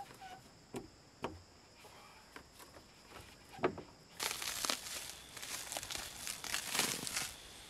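A few light clicks and knocks as a brass fitting is worked onto blue PEX tubing. About four seconds in, a dense run of plastic crinkling and rustling starts as a coil of red PEX tubing is handled, stopping shortly before the end.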